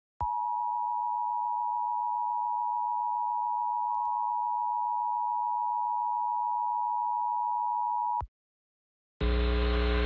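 Emergency Alert System attention signal: the steady two-tone 853 and 960 Hz EAS tone sounding for about eight seconds and cutting off, announcing a Required Monthly Test. About a second after it stops, a louder, fuller sound cuts in near the end.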